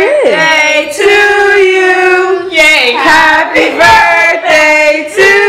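Female voices singing, with long held notes that change pitch every second or so.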